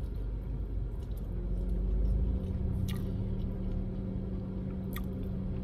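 Chewing a mouthful of California roll sushi, with two small mouth clicks, over a steady low vehicle hum.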